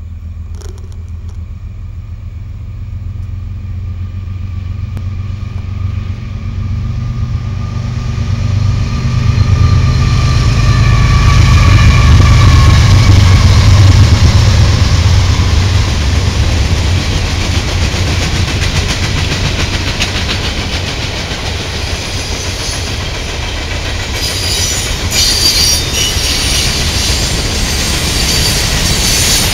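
Norfolk Southern coal train passing close by. Its GE diesel-electric locomotives (an ES44AC leading three C44-9Ws) give a low rumble that grows louder and peaks about halfway through as they go by. Then the coal hoppers follow with a steady rolling clatter of wheels on rail, and sharper high-pitched wheel noise and clicks come in near the end.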